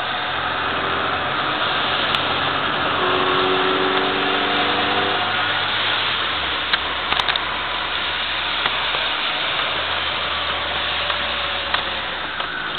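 In-cabin sound of a 1998 Mini Cooper's A-series four-cylinder engine running hard on a lap of a wet circuit, over a steady hiss of tyres on wet tarmac. The low engine note shifts down about six seconds in and back up about nine seconds in, and a few sharp clicks come around seven seconds in.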